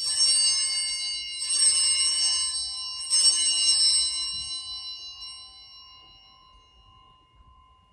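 Altar bells rung three times, each ring a short jangle of several high bell tones. The ringing fades slowly after the third ring. This is the signal for the elevation of the chalice at the consecration.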